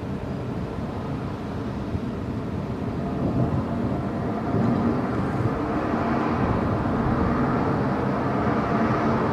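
Rolling thunder: a long low rumble that grows louder from about three seconds in and keeps rolling.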